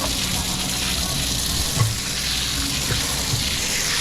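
Garden hose spraying water down into an open boat hull's bilge, a steady hiss of spray with one brief knock a little under two seconds in.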